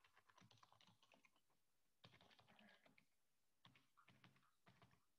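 Very faint computer keyboard typing: runs of keystrokes entering text into a form, with short pauses between the runs.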